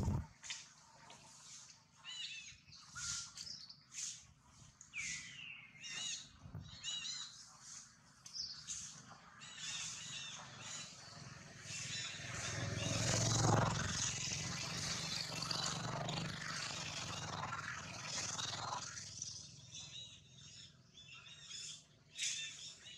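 Birds chirping and calling over and over in the surrounding trees. A low rumble swells up about halfway through and fades out a few seconds later.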